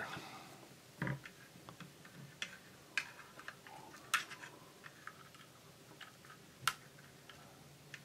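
Small screwdriver clicking against screw heads and the metal switch frame while loosening the screws of the switch contact stack: a handful of sharp, irregularly spaced clicks.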